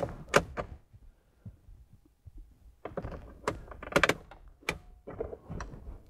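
Plastic clicks and knocks of a 2011 Mini Countryman's key fob being pulled out of the dashboard key slot, pushed back in and the start button pressed: one sharp click just after the start, then a cluster of clicks and taps about three to five seconds in.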